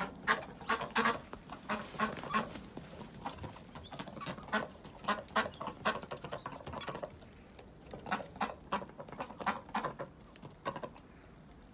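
Several white domestic ducks quacking, a quick run of short repeated calls that stops shortly before the end.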